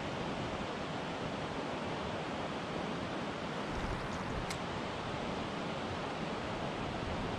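Steady rush of flowing water, even and unbroken, with one faint click about four and a half seconds in.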